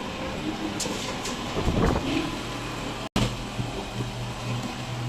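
Restaurant background noise: an even hum of the room with a few faint clicks. It drops out briefly about three seconds in, after which a low steady hum is heard.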